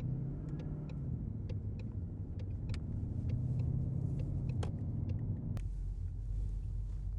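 2020 Mustang's V8 running steadily on a ghost-cam tune, with scattered light ticks over it. A bit over halfway through, the steady engine note gives way to a lower, duller rumble.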